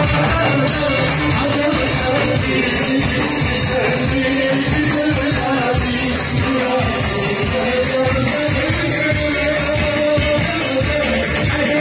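Merawis song: a voice sings a melody over steady hand-drum strokes from a darbuka, with an oud.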